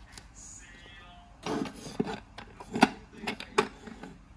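Hands working on a small pine wooden jig: a few sharp knocks and clicks of wooden parts and stretched elastic bands, coming at uneven intervals from about a second and a half in.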